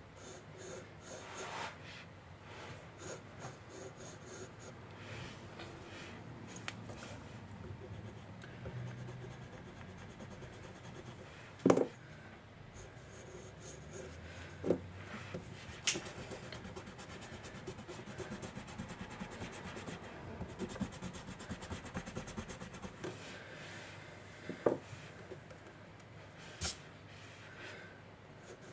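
Pencil sketching on paper: scratchy strokes and rubbing as lines are drawn, broken by a few sharp knocks, the loudest about a third of the way in.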